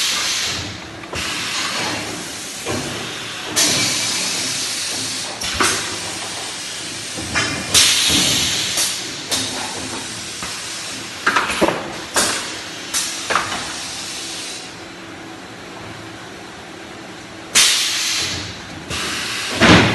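Paper-gluing machine in a paper mill at work: repeated sharp hisses, several of them trailing off over a second or two, mixed with short knocks and clanks from the machinery.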